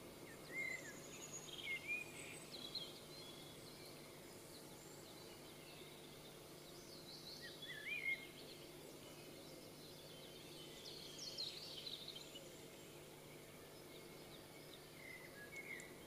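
Wild songbirds giving scattered short chirps and song phrases, the loudest about eight seconds in, over a faint steady low hum.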